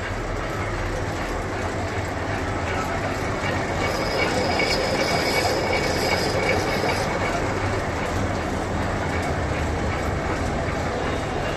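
Lathe cutting a round metal plate: steady mechanical running noise, with a thin high-pitched squeal for about three seconds midway.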